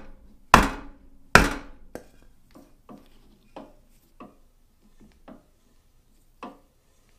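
Mallet knocking a wood block upward against a drill press chuck twice, seating the chuck's arbor in the spindle. After that come fainter, irregular clicks and taps while the chuck is handled.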